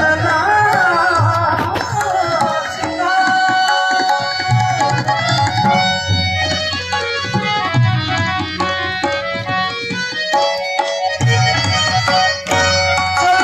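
Indian music: a tabla-style hand drum playing a rhythm under a sustained melodic instrument, with a sliding melody line in the first couple of seconds.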